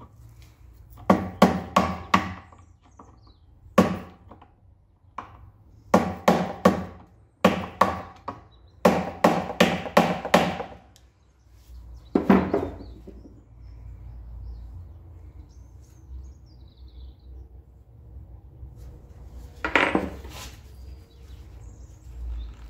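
Hammer blows in quick groups of three to five, then a couple of single blows, tapping on a seized part of a Cevik air compressor to knock it free.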